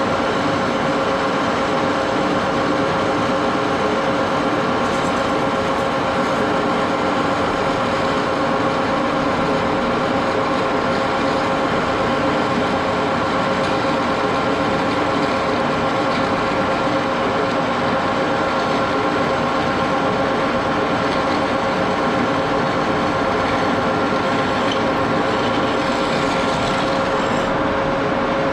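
1941 Axelson gear-head lathe running steadily, its gearbox giving a constant whine made of several steady tones.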